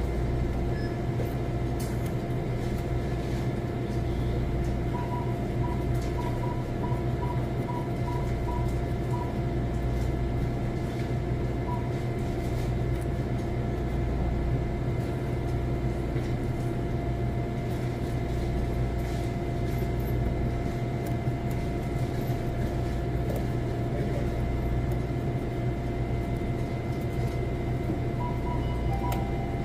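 Steady machine hum with a low rumble and several constant tones. A faint run of short, high beeps comes about five seconds in and again near the end.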